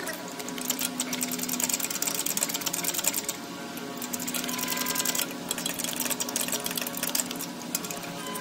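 Quarter-inch drive ratchet with an E8 Torx socket clicking rapidly and continuously as it backs out the EGR valve's mounting stud.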